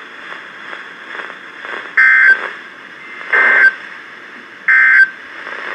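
Weather radio end-of-message signal from a Midland WR-400's speaker: three short, loud bursts of raspy digital data tones (the EAS/SAME end-of-message code), about 1.3 s apart, over faint radio static hiss.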